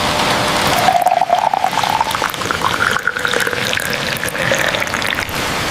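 Tea being poured into a cup, its pitch rising steadily as the cup fills, over a steady hiss of rain.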